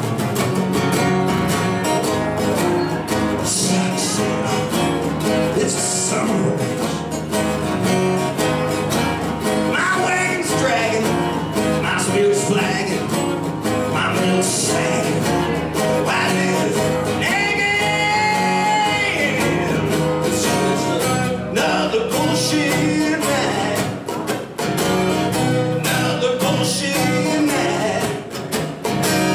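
A man singing an original country-folk song while strumming an acoustic guitar, performed live. Near the middle he holds one long sung note.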